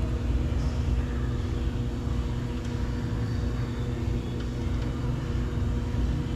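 Steady low rumble with a constant hum from running machinery, with a couple of faint light clicks partway through.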